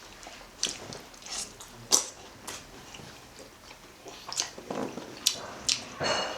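Mouth sounds of someone eating momo dumplings: chewing with a string of short, sharp wet smacks and clicks, and a longer noisy burst near the end.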